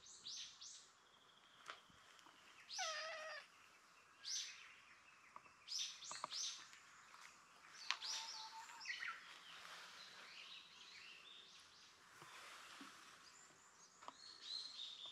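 Brown-tabby-and-white cat meowing, the clearest call a falling meow about three seconds in, with further short calls later. Short high chirps of birds come in between.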